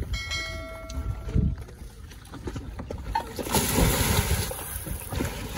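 A diver in a drysuit and tanks jumps into a lake about three and a half seconds in: a loud splash, then churning water, over wind rumble on the microphone. Near the start, a ringing tone lasts about a second and a half.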